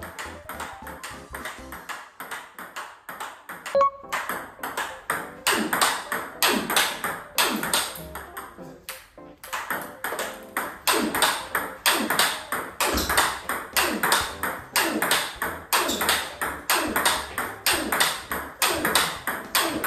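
Table tennis rally of forehand drives: a ping-pong ball clicking sharply and regularly off bats faced with Tibhar Hybrid MK FX rubber and bouncing on the table, several clicks a second, strongest from about four seconds in. Background music plays under it.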